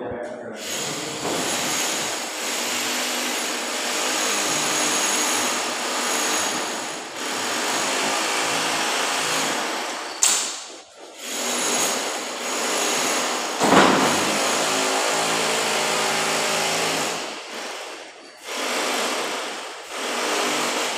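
An electric power tool's motor runs in long stretches, stopping and starting again several times.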